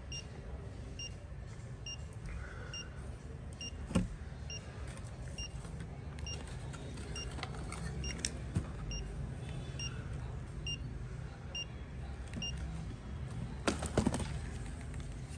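Fingertip pulse oximeter beeping in time with the pulse: short, high beeps about once a second, stopping near the end. A sharp knock about four seconds in and a few clattering knocks near the end as the plastic device is handled.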